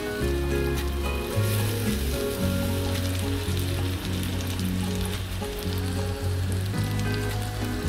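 Chicken seekh kebabs sizzling in shallow oil in a frying pan, with small crackles, on medium heat. Background music with low notes plays under the sizzle.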